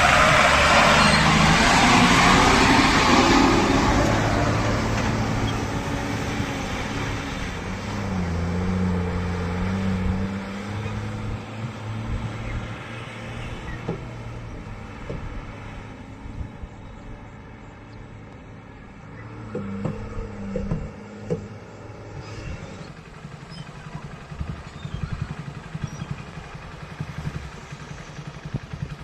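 Diesel engine of a JCB backhoe loader at work, loud and revving under load for the first few seconds, then dropping to a lower, steadier run. A few short knocks come around two-thirds of the way through.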